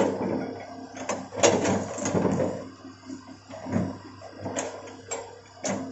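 Hitachi hydraulic excavator's diesel engine running steadily, with irregular clanks and knocks and short scraping noises from the moving arm and bucket.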